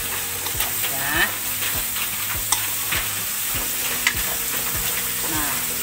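Fish in tempoyak sauce sizzling in a wok while a metal spatula stirs it, scraping and knocking against the pan at irregular moments. The sauce has cooked down until the oil separates, the sign that the dish is done.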